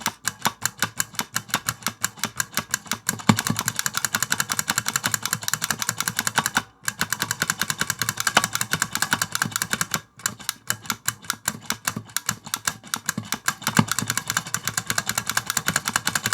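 Typing on a keyboard of clicky Big Switches (oversized mechanical key switches), a rapid clatter of sharp clicks. The keystrokes come evenly spaced for the first few seconds, then pick up into fast continuous typing with two brief pauses.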